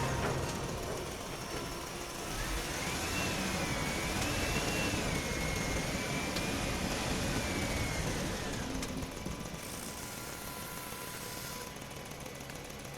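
Radio-controlled Huina construction toy running, its electric motor giving a thin whine that wavers up and down in pitch for several seconds over a rough, steady mechanical noise, then fading somewhat.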